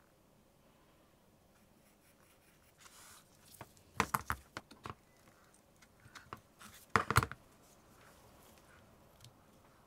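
Clicks and knocks from a metal-cased 3.5-inch IDE hard drive being handled on a desk and a USB-to-IDE adapter being pushed onto its connector. There is a short cluster of sharp clicks about four seconds in, and another about three seconds later.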